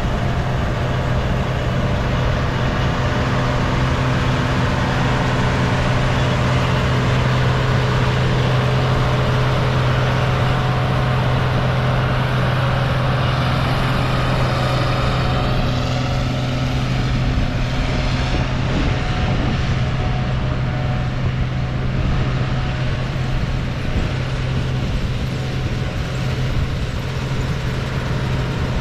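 Combine harvester running steadily under load, a deep even engine drone with a constant low hum.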